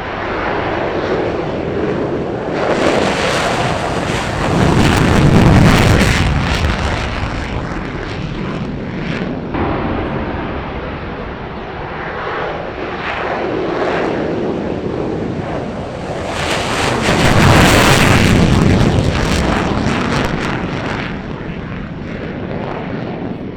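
Military fighter jets' engines running on takeoff: a jet roar swells to a peak about five seconds in and eases off, then a second jet swells to a louder peak near eighteen seconds and fades.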